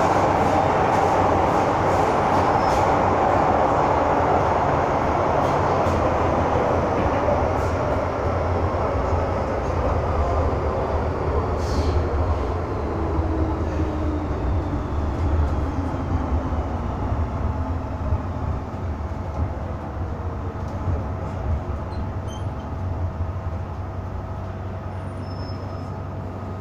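Running noise inside an MTR M-Train electric multiple unit: a loud rumble of wheels and traction that gradually dies down, with motor whines falling in pitch, as the train slows down.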